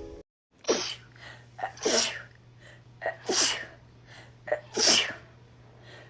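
A woman sneezing four times in quick succession, about one sneeze every second and a half, each of the later ones led by a short sharp intake of breath.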